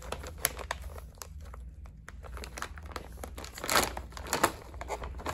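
Plastic bag of Werther's Original candies crinkling as it is handled and opened, many small crackles with a louder burst of crinkling about four seconds in.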